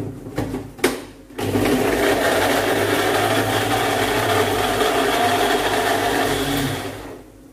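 Small countertop blender with a grey base and a cup-style jar grinding wet chilli-and-shallot spice paste. A few clicks come first as the jar is seated on the base. The motor then starts about a second and a half in, runs steadily for about five seconds and winds down near the end.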